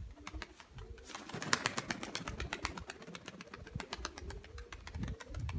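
Domestic pigeons cooing, low and wavering, with many quick sharp clicks over them.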